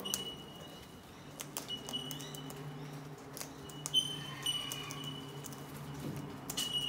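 Sulphur-crested cockatoos foraging: scattered sharp clicks and light scrabbling, with a thin, high, steady call held about half a second, four times, over a faint low hum.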